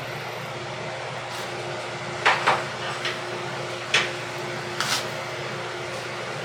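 A handful of short, sharp metal clanks at uneven intervals, typical of blacksmith's tools and iron stock being handled and set down at the forge and anvil, over a steady machine hum.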